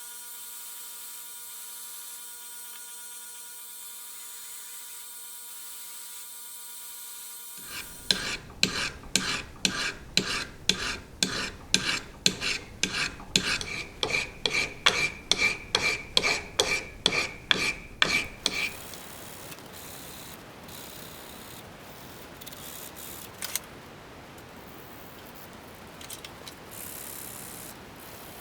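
A hand file rasping back and forth on the steel of a cut-off wrench shaft, about two strokes a second for roughly ten seconds, with a ringing metallic tone in each stroke. It is a clean-up of the cut end. A faint steady hum comes before it.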